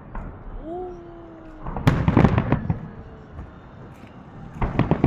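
Aerial fireworks shells bursting: a cluster of booms and crackles about two seconds in, and another near the end. Just before the first cluster, a held tone rises and then slowly sinks.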